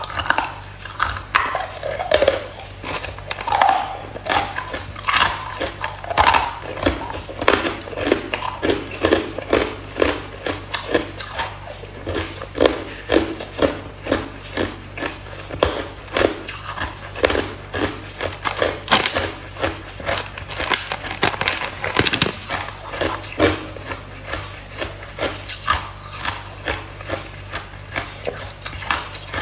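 Ice being chewed close to the microphone: a steady run of sharp crunches, about two a second.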